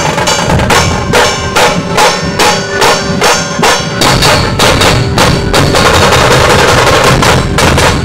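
Dhol tasha ensemble playing loud: tasha kettle drums struck with thin sticks in a steady rhythm of sharp strokes, about four a second, over the deep beats of large dhol barrel drums. About six seconds in, the strokes run together into a fast, unbroken roll.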